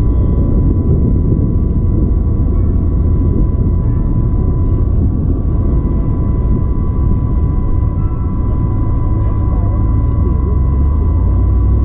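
Steady wind and road rumble on the microphone of a camera mounted outside a moving car, heaviest in the low range, with a thin steady whine over it.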